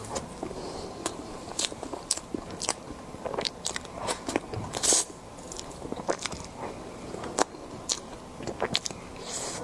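Close-miked eating: a person biting and chewing food, with many irregular crisp crunches and crackles and a louder crunch about halfway through.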